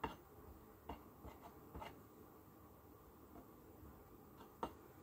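Near silence: room tone with a few faint, short taps and clicks of handling, the sharpest one near the end.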